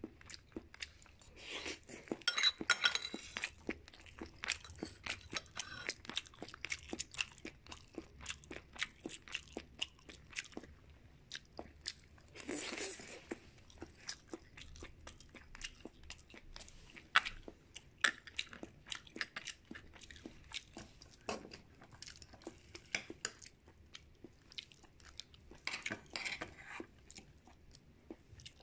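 Close-miked chewing and crunching of a chicken and tofu dish, with many small wet mouth clicks and a few louder bites: a couple of seconds in, near the middle and near the end.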